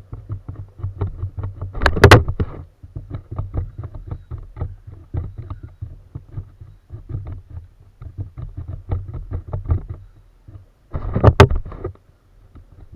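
Handling noise from a plastic kayak and fishing tackle while a fish is played on a bent rod: many short irregular clicks and knocks over a low rumble, with two loud bangs, one about two seconds in and one near the end.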